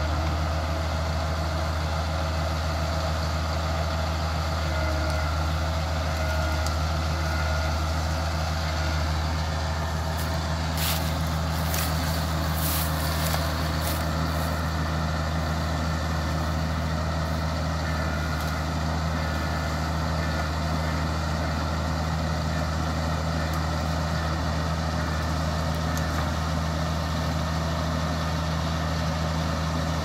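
Small crawler bulldozer's diesel engine running steadily with a low, even drone while the machine pushes an uprooted tree. A few sharp cracks or clicks come about a third of the way in.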